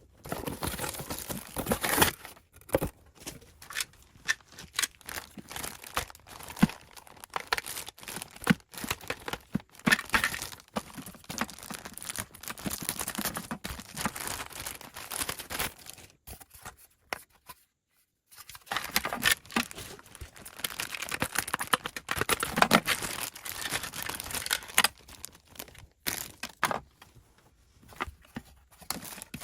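Packaging being handled, torn open and rustled while toys are unboxed, with many sharp little clicks and crackles. There is a pause of about two seconds a little past the middle.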